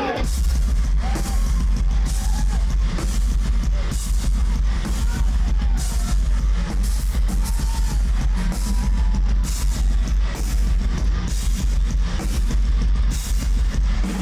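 Heavy metal music with a drum kit and guitars, playing loud and dense with a steady beat.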